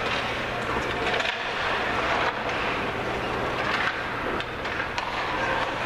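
Ice hockey play echoing around a rink: skate blades scraping the ice, with scattered sharp clacks of sticks and puck, over a steady low hum.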